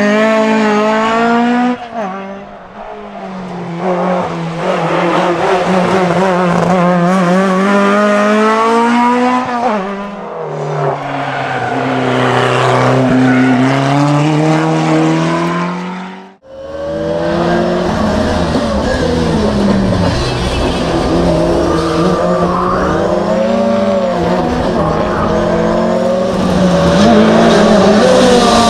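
Historic rally car engines revving hard, pitch climbing and dropping again and again as the cars accelerate, shift and brake for corners. About halfway through the sound cuts abruptly to another car at high revs.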